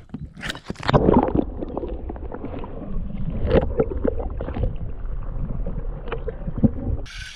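A canoe on the water: splashing and knocks against the hull, over a steady low rumble.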